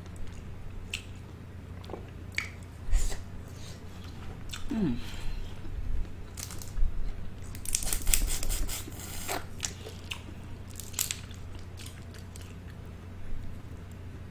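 Close-miked eating sounds: a person chewing and biting, with scattered sharp cracks and clicks and a dense run of them about eight seconds in. A steady low hum runs underneath.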